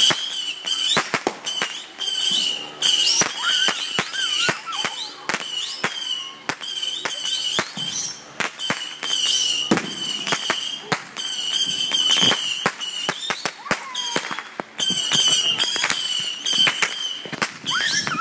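Fireworks going off: a rapid, irregular string of sharp bangs and pops throughout. A steady high-pitched tone carries on underneath, breaking off every few seconds.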